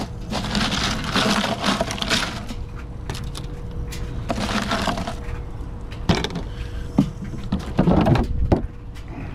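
Crushed ice rattling and crunching in a plastic cooler as a hand digs through it for fish, in several bursts, with a few sharp knocks in the second half.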